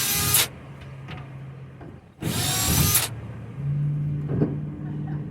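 Power drill running in short bursts to back screws out of a wooden bed frame, its motor whine rising in pitch as it spins up: one burst stops about half a second in and another runs from about two seconds in. A low steady hum sounds between the bursts.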